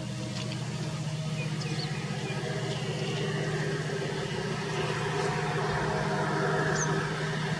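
EMD diesel locomotive's engine running steadily as the train approaches, a low hum growing slowly louder. A few birds chirp faintly.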